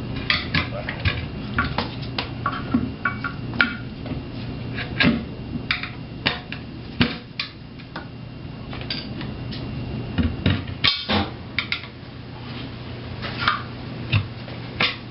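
Screwdrivers clinking and scraping against a wheel rim as the tire bead is pried up and over the rim's edge: a string of sharp, irregular metallic clicks and knocks.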